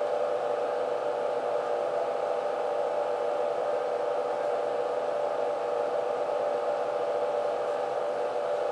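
Steady mechanical hum with an even hiss from a running fan, unchanging throughout.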